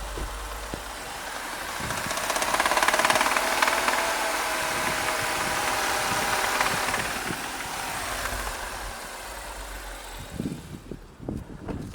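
BMW M135i's N55 turbocharged straight-six running with a fast metallic rattle (klappern) that shows in the 1500–2000 rpm range, 61,000 km on the clock. It swells about two seconds in with a faint whine over it, then eases after several seconds and dies away near the end.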